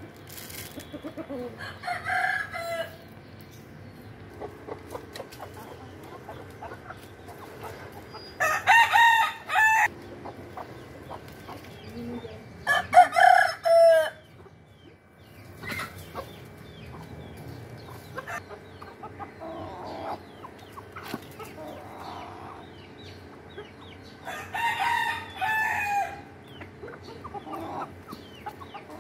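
Desi roosters crowing four times, the two middle crows much the loudest, with hens clucking softly in between.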